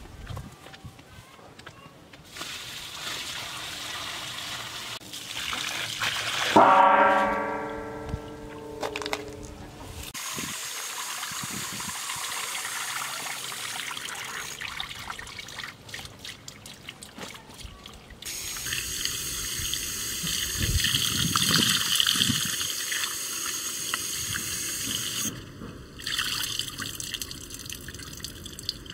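Water running from an outdoor tap and splashing as produce is washed under it, with a brief ringing tone about a quarter of the way in.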